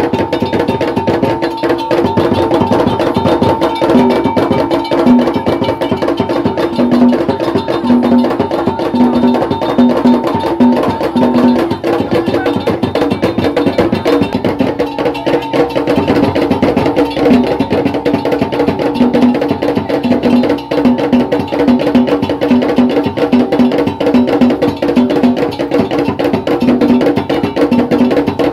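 Traditional Ga drumming: drums and a sharp wood-block-like percussion part playing a fast, dense rhythm without a break.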